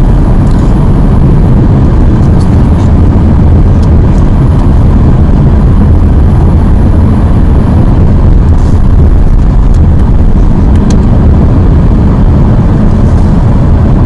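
Steady road and engine noise of a moving car heard inside the cabin: a loud, even low rumble with no change in pace.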